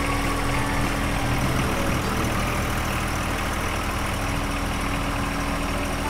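John Deere backhoe loader's diesel engine running steadily while the rear backhoe digger is being worked.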